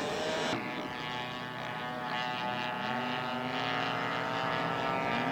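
Radio-controlled model aircraft engines running, several steady engine tones with the pitch slowly rising partway through, as when the throttle is opened up.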